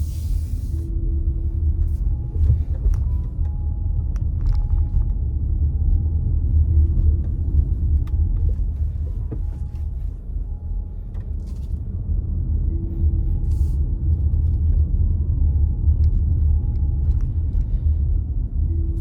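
A car driving: steady low road and engine rumble, with a few faint short tones and light ticks over it.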